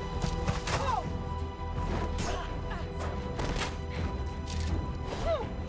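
Action-film battle soundtrack: music under a run of sharp weapon clashes and impacts, with a few short swooping sounds.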